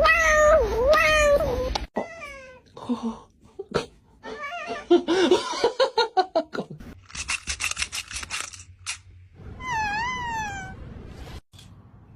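Domestic cats meowing in a string of short, abruptly cut clips: a long wavering meow that breaks off about two seconds in, then shorter falling meows, a run of rapid, evenly repeated calls in the middle, and another wavering meow near the end.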